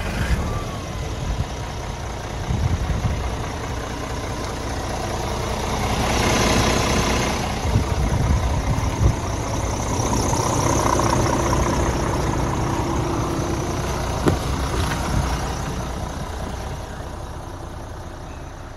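Scania R450's 13-litre straight-six diesel engine idling just after starting, growing louder in the middle of the stretch and easing off towards the end.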